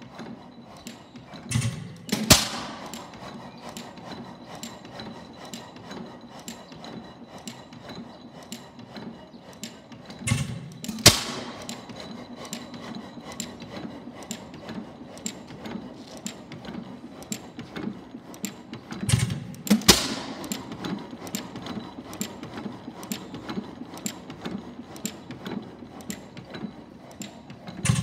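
6 HP tank-cooled Faribault single-cylinder gas engine running on its first run after a full mechanical restoration. It fires two loud strokes close together about every nine seconds, then coasts on its flywheels between them with steady light mechanical clicking.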